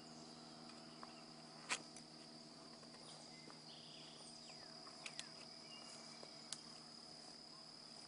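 Faint, steady high-pitched insect chorus, crickets trilling without a break. A few short sharp clicks stand out: the loudest about two seconds in, a quick pair about five seconds in, and one more near six and a half seconds.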